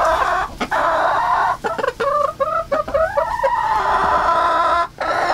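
Brown laying hens clucking and squawking loudly with hardly a pause, drawn-out complaining calls that the owner answers as a hen being 'mouthy' and backtalking over treats.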